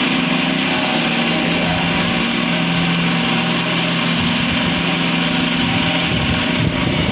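Jumbo cotton candy machine running, its motor spinning the cast heating head with a steady hum over a hiss.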